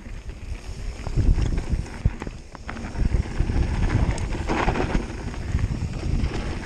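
Mountain bike riding down a rough dirt and gravel trail: tyres rumbling and crunching over stones and bumps, the bike rattling, with wind buffeting the microphone.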